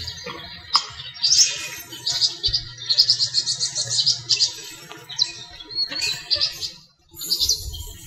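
Small songbirds chirping and twittering in the trees, with a fast run of rapidly repeated high notes about three seconds in and short whistled calls after it.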